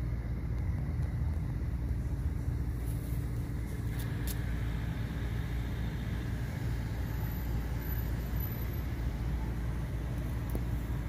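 Steady low outdoor rumble, like road traffic or a running engine somewhere off-camera, holding at an even level throughout, with a faint click about four seconds in.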